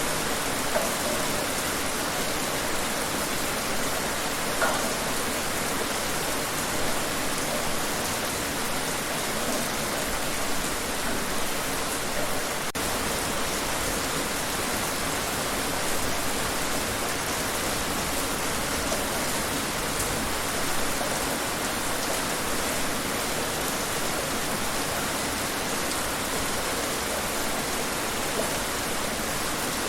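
Steady rain falling outdoors, an even hiss with faint scattered drop patters and no let-up.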